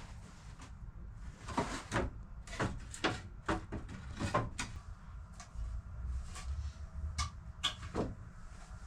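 Irregular wooden knocks and clatter, about one or two a second, as pallet boards are handled and set down, over a low steady hum.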